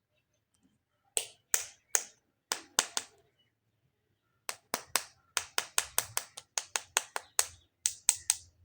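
Sharp clicks or taps: a handful spaced out over the first few seconds, then a quick, even run of about four a second from about four and a half seconds in.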